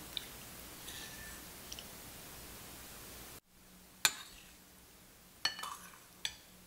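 Metal spoon clinking against a ceramic soup bowl: one sharp clink about four seconds in, then a few lighter clinks and scrapes a second and a half later, over a faint steady hiss that drops away after about three seconds.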